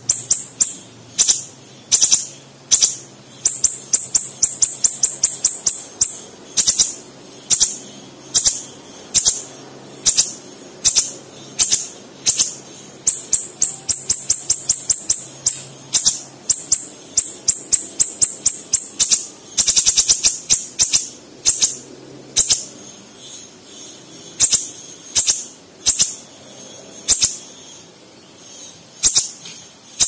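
Caged siri-siri bird singing in rapid-fire runs of sharp, high chipping notes, the close-packed 'tembakan' bursts that keepers prize, broken by single notes.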